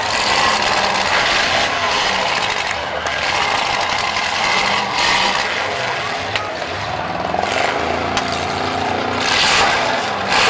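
Several demolition derby cars' engines running and revving in surges as they ram each other, with a single sharp bang about six seconds in.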